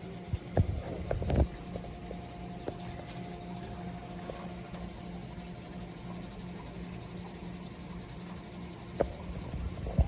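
A few sharp knocks and clicks, a cluster about a second in and a couple more near the end, over a steady low hum.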